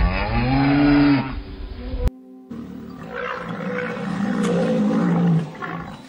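A cow mooing once, a single long moo that rises and then falls in pitch and ends a little over a second in. After a short break, a lower, rougher call runs for a couple of seconds.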